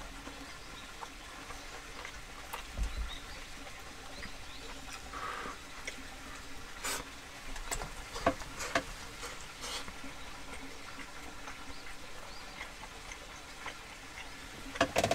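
Close-up eating sounds: chewing rice with small scattered clicks of chopsticks against a bowl, and a quick run of clicks near the end.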